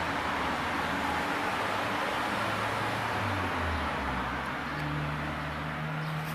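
Steady vehicle running noise: an even rush with a low engine hum that shifts in pitch about halfway through.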